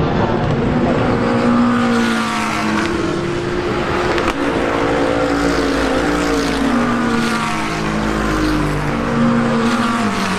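GT race car engine at full throttle. Its pitch climbs and drops back several times as it shifts gears.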